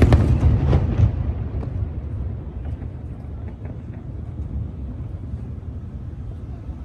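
Fireworks: the crackling tail of a burst in the first second, then a low rolling rumble that slowly fades, with a few faint distant crackles.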